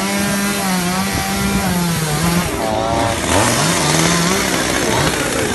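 A two-stroke chainsaw running at high revs, its pitch wavering, dropping briefly about two and a half seconds in and then picking up again, most likely cutting up the fallen tree.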